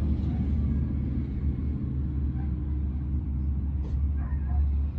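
Dump truck engine running with a low, steady rumble, with one sharp click about four seconds in.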